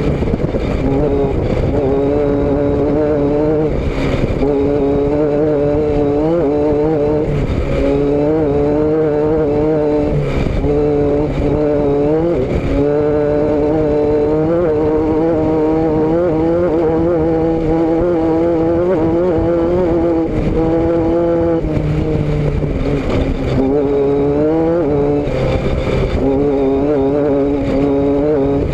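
A motor vehicle's engine and exhaust running steadily while under way, picked up by a rear-mounted camera. Several times the engine note rises briefly in pitch, then settles back.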